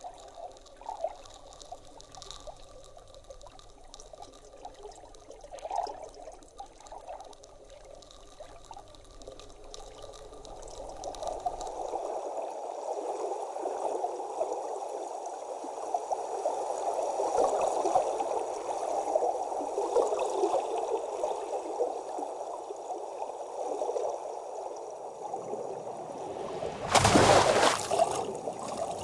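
Trickling, bubbling water, faint at first and growing louder and denser from about ten seconds in. Near the end comes a sudden loud splash as a bird plunges into the water.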